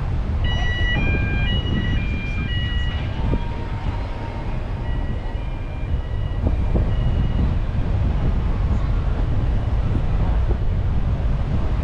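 Low, steady rumble of a slow-moving car with wind buffeting the microphone. Over it, a short run of high, steady notes stepping between several pitches, like an electronic chime melody, plays in the first three seconds, then more faintly again around five to seven seconds in.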